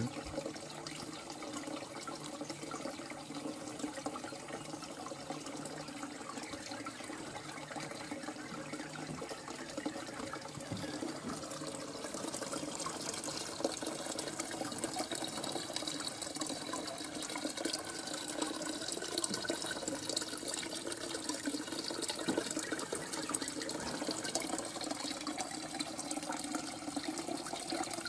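Steady running, splashing water, which gets busier and brighter from about twelve seconds in.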